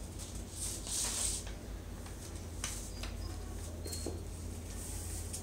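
Faint rustling and handling noises with a few light clicks and two brief high squeaks, over a steady low electrical hum.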